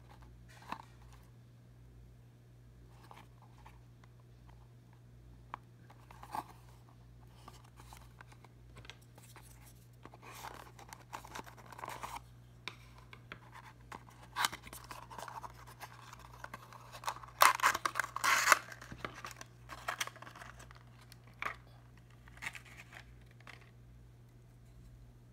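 Small cardboard box being handled and opened, with a clear PET plastic tray slid out: scattered small clicks and scrapes at first, then denser scraping and crinkling from about ten seconds in, loudest around two-thirds of the way through, thinning out near the end.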